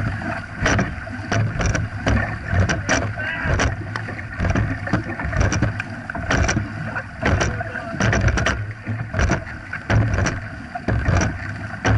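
Dragon boat paddles striking and pulling through the water in a steady stroke rhythm: repeated splashes over the rushing of water along the hull as the boat is paddled hard.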